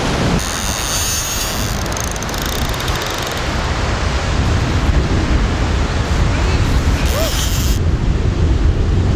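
Surf breaking and washing over rocks, then strong wind buffeting the microphone with a heavy low rumble.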